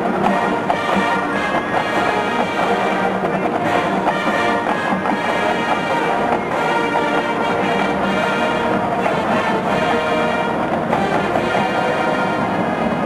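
High school marching band playing, its brass section holding sustained chords.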